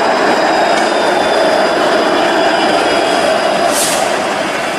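A Flexity Outlook streetcar rolling past at close range on street track: a steady rumble of steel wheels on rail with a faint high-pitched whine over it. A brief hiss nearly four seconds in, and the sound eases a little near the end as the car pulls away.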